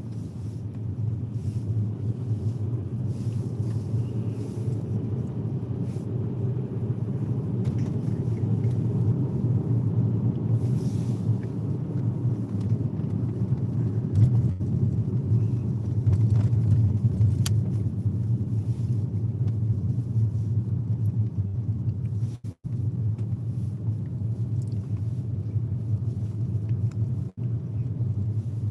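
Car driving on a highway: a steady low road and engine rumble. The sound cuts out for a split second twice in the last third.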